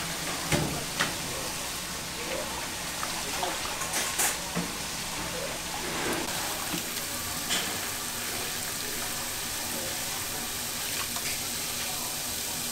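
Tap water running steadily into a stainless steel sink full of pig intestines, splashing and sloshing as gloved hands lift and swish them through the water, with a few louder splashes.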